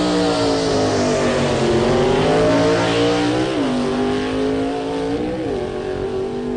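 Car engine sound effect: a high-revving engine running steadily with hiss above it. Its pitch twice rises briefly and then drops sharply, about three and a half and five seconds in.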